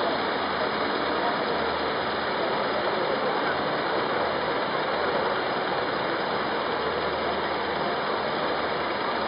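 Steady wash of noise as a column of police BMW motorcycles rolls slowly past at walking pace; no single engine or event stands out.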